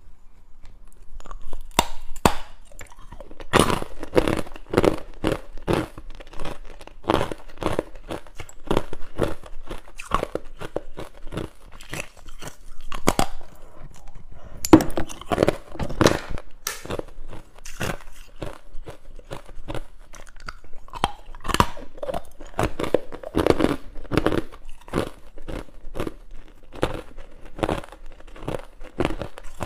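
Hard clear ice being bitten and chewed: a close run of sharp cracks and crunches, coming in clusters as each piece is bitten off and crushed between the teeth.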